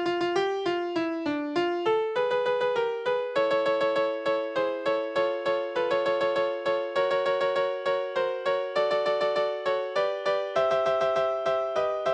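Electronic piano-like keyboard tones playing a melody over chords, in short struck notes that follow each other quickly and evenly, each dying away. It is a synthesized rehearsal track for the first-soprano part of a choral song.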